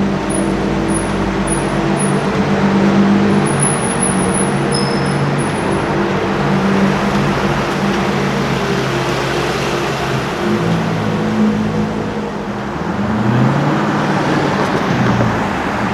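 Car engine running in street traffic with a steady low drone, then revving, its pitch rising and falling a few times in the last few seconds.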